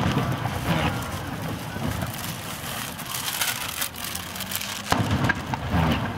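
Aerial firework shells bursting: a sharp boom right at the start that rolls on as a low rumble, then another cluster of booms about five seconds in.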